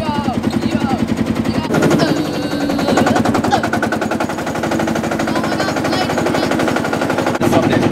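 Small tractor's engine running, a rapid, even train of sharp firing pulses; it gets louder about two seconds in and again near the end.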